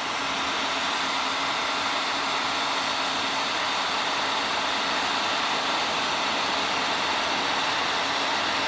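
Electric heat gun blowing steadily, a constant hiss of air with a faint hum, as it heats heat shrink tubing to shrink it onto a wire connector.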